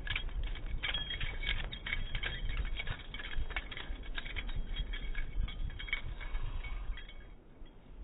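A puppy digging in sand with its front paws: fast, continuous scratching and spraying of sand that stops about seven seconds in.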